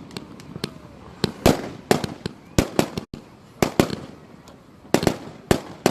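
Fireworks going off: about a dozen sharp bangs at irregular intervals, sometimes two close together, each with a short fading tail.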